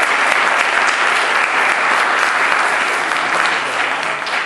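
Audience applauding: a dense, steady round of clapping that begins to tail off near the end.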